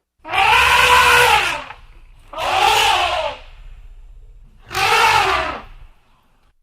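An animal calling three times, each call rough and about a second long, with a low rumble under the calls.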